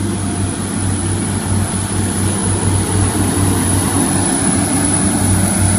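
Class 175 diesel multiple unit pulling away, its underfloor Cummins diesel engines running steadily under power with a low drone.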